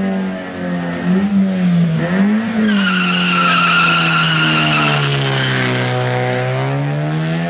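Honda Civic's engine revving in quick blips, then held high while its tyres squeal for about two and a half seconds in a burnout; the engine note sags and then climbs again after the squeal stops.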